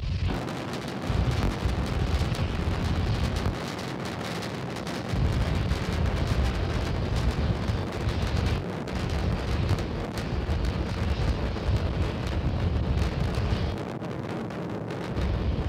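Low rumble of Starship SN8's three Raptor rocket engines firing during ascent, swelling and easing every few seconds.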